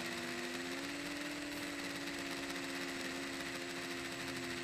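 Mini FPV quadcopter's motors and propellers running in flight, heard from on board: a steady hum whose pitch drifts slightly up and down as the throttle changes.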